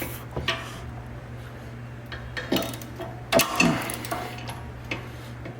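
Metal hand tools clinking and knocking against a car's rear sway bar end link and suspension parts, in scattered irregular strikes, while the end link nut is worked loose.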